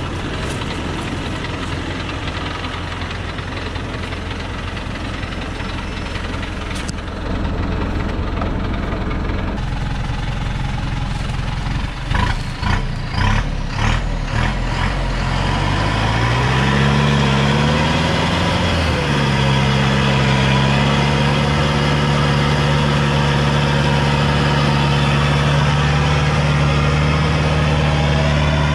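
Thaco Foland truck's diesel engine idling, then a few short bursts about twelve seconds in. The engine then revs up over a couple of seconds and holds at a steady higher pitch, straining to pull the heavily loaded truck out of the soft sand and mud it is stuck in.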